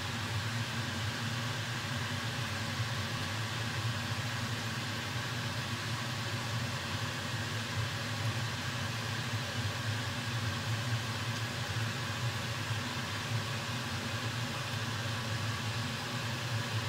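Steady low mechanical hum with an even hiss, unchanging throughout, with no distinct knife or handling sounds standing out.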